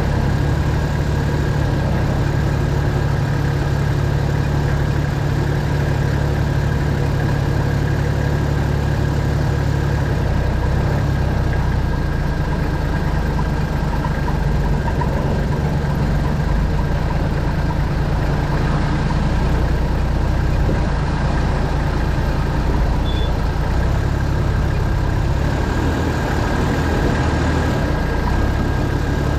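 Four-wheel-drive's diesel engine running steadily at low speed on an off-road track, a low even hum with no revving or sudden knocks.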